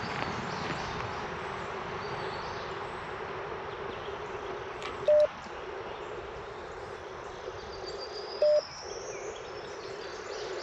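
Icom IC-705 transceiver's speaker hissing with band static, broken twice by a short single Morse sidetone beep, about three seconds apart.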